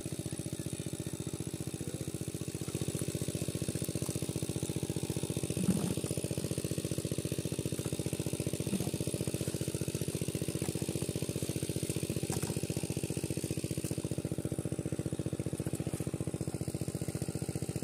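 A small engine running steadily at one speed, a fast, even beat that doesn't change, with a brief soft thump about six seconds in.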